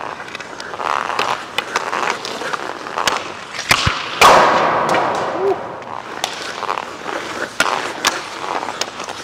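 Hockey skates scraping and cutting on rink ice with light clicks of the stick on the puck, then a sharp crack of a shot off a Bauer Nexus League stick about four seconds in, followed by about a second of scraping skate blades.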